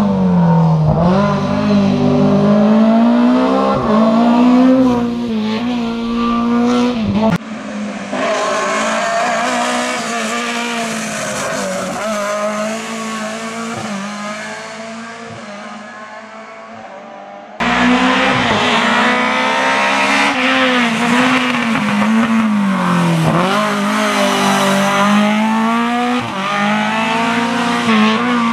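Lada 2101 hillclimb car's 1.6-litre engine at full throttle, its revs climbing and dropping again and again through gear changes. The sound changes abruptly about 7 and 18 seconds in. In the middle stretch it fades as the car pulls away.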